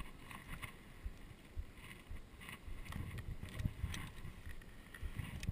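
Specialized mountain bike rolling over a dirt trail: a low tyre rumble with scattered knocks and rattles from the bike, and wind on the microphone.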